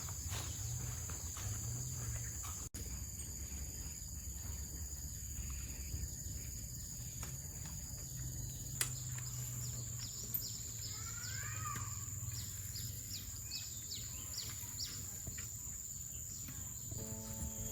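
Rural outdoor ambience: a steady high-pitched insect drone with a low rumble underneath, and a few short bird chirps about ten to twelve seconds in.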